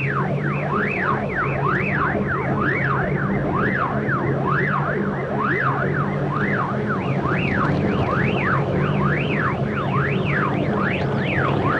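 Minimoog synthesizer tone wobbling up and down in pitch in a steady, siren-like cycle of about two sweeps a second, over a steady low drone.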